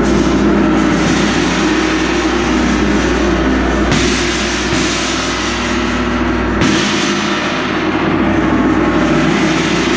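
Large Zildjian gong struck over and over with a soft mallet, its ringing building into a loud, dense, shimmering wash.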